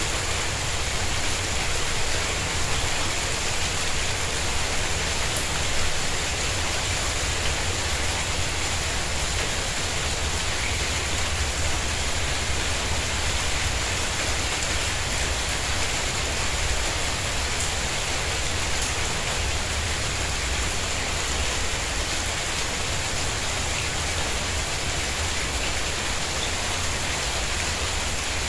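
Steady rain falling on a tiled courtyard and garden plants: an even, constant hiss with a few faint drop clicks.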